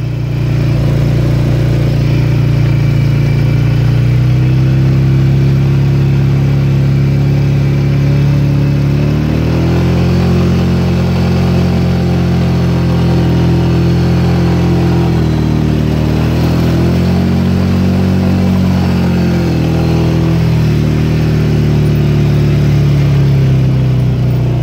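Polaris Sportsman 550 EFI ATV's single-cylinder engine running under load while riding a muddy trail in two-wheel drive, its revs rising and falling several times.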